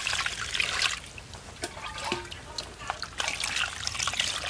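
Water poured from a plastic bowl over pineapple pieces in a stainless steel pot, splashing and trickling as the pineapple is rinsed. The pouring is heaviest in the first second, eases off, and picks up again about three seconds in, with a few light knocks in the lull.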